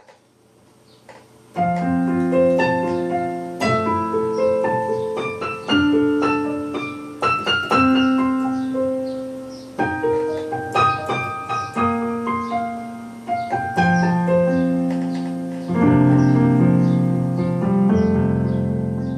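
Electronic keyboard played with a piano sound: chords and a melody line, the notes struck and left to ring. It starts softly, full chords come in about a second and a half in, and it closes on held chords that fade.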